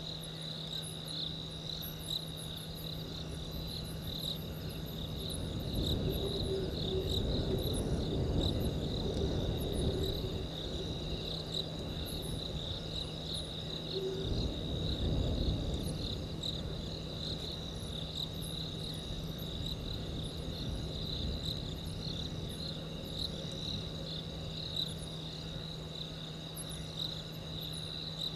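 Night chorus of crickets: a steady, fast-pulsing high trill, with scattered higher chirps above it. Under it is a steady low hum, and a low rumble swells twice, a few seconds in and again about halfway through.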